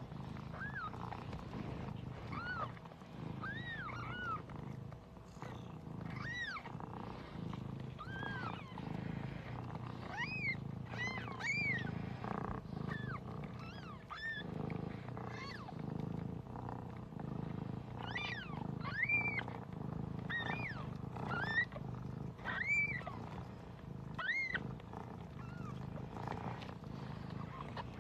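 Newborn Siberian kittens mewing: thin, high cries that rise and fall, one every second or two. Under them the mother cat purrs steadily.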